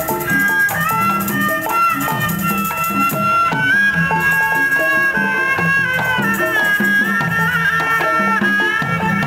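Traditional Betawi ondel-ondel music: a high melody of long held notes that step in pitch, over steady drumming.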